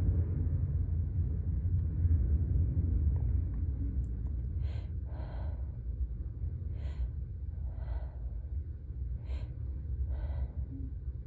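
A person's gasping breaths while waiting for a sneeze that has not yet come: from about four seconds in, three pairs of short breaths, one pair every two seconds or so. A steady low rumble lies under it throughout.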